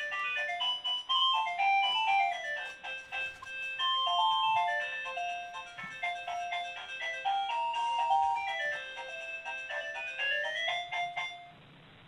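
Electronic doorbell chime set off by the video doorbell's button, playing a long tune of quick, clear notes. It stops suddenly near the end.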